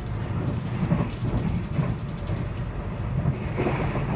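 Argo Bromo Anggrek passenger train running at speed, heard from inside a carriage: a steady rumble of wheels on the rails with irregular knocks from the track.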